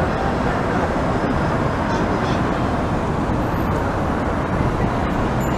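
Steady city street traffic noise, with cars driving past close by.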